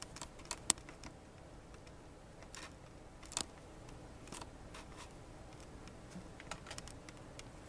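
Scattered light clicks and taps from handling small objects, the sharpest about two-thirds of a second in and another about three and a half seconds in, over a faint steady room hiss.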